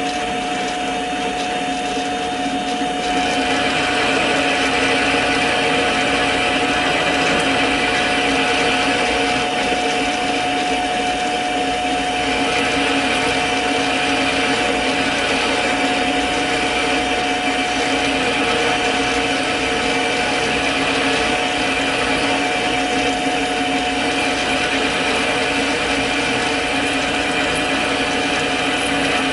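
Mini lathe running with a steady motor whine while a spring parting tool cuts into the spinning workpiece. The cutting noise comes in louder about three seconds in and carries on steadily.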